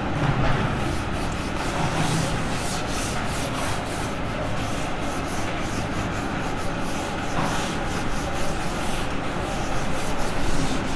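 Irregular rubbing and scraping strokes against a board, over a steady background rumble.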